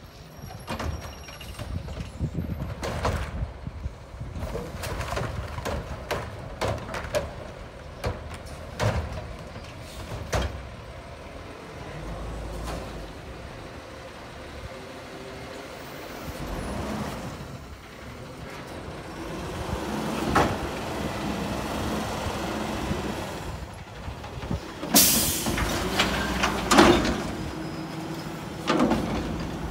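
Front-loader garbage truck with its diesel engine running as it pulls up, with clanks and knocks. Later the engine holds a steady hum while the hydraulic forks lift the container over the cab, with a loud air hiss about 25 seconds in and sharp bangs near the end.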